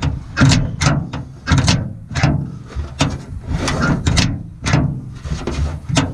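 Outside door handle and latch of a Ford L8000 truck door worked back and forth by hand, clacking and rattling about two times a second. The sticking latch has been sprayed with WD-40 and is freeing up so that the handle springs back.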